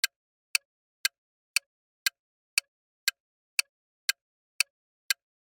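Countdown-timer tick sound effect, a sharp clock-like tick repeating evenly at about two ticks a second, marking the time left to answer a quiz question.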